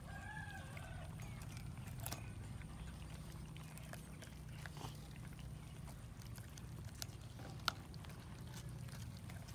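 Cats chewing and tearing at a whole raw chicken, with scattered short clicks and one sharp click late on, over a steady low hum. A brief animal call sounds at the very start.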